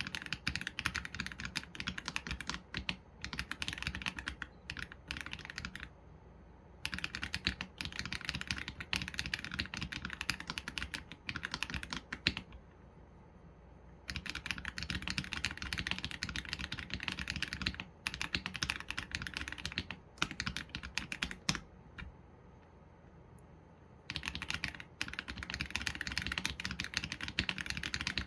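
Typing on an AULA F87 Pro mechanical keyboard with Leobog Graywood V3 linear switches and PBT keycaps: quick runs of keystrokes, broken by short pauses of a second or two about six, twelve and twenty-two seconds in.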